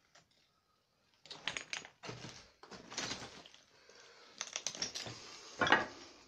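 Footsteps crunching and scraping over loose brick rubble and broken wood, an irregular run of crunches starting about a second in, loudest near the end.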